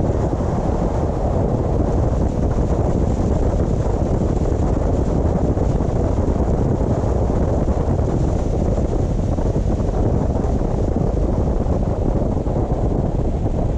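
Steady road and wind noise of a car driving: an even, low rumble with wind on the microphone.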